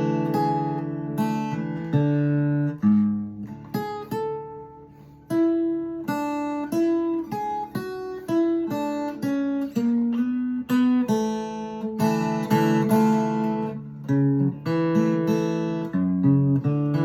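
Ovation koa acoustic guitar in DADEAD open tuning, fingerpicked: a melody of single plucked notes ringing over low bass notes. The notes nearly die away about five seconds in before the picking starts again.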